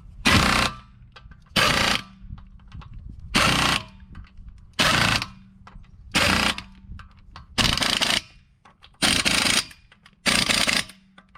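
Impact gun hammering lug nuts onto a wheel in about eight short bursts, roughly one every second and a half. It is a weak gun, not enough to bring the nuts to full torque.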